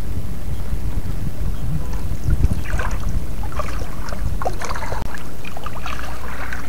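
Shallow seawater splashing and sloshing as someone wades and reaches into it, with small splashes and clicks from about two and a half seconds in, over a steady low rumble on the microphone.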